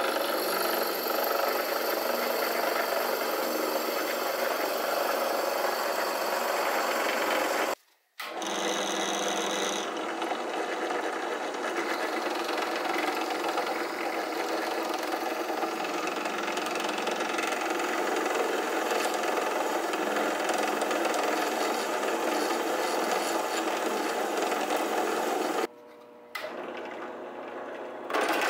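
Benchtop drill press running steadily, its twist bit cutting into a spacer held in a vise. The sound cuts out briefly about a third of the way in and again near the end.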